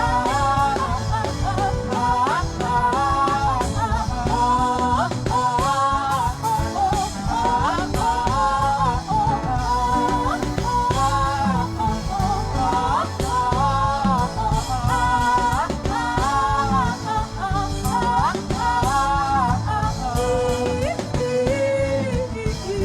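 A sung worship chant over steady instrumental backing, the voice moving in short wavering phrases; near the end the melody drops to a lower held note.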